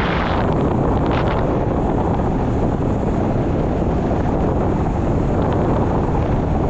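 Loud, steady wind buffeting the microphone in flight under a paraglider.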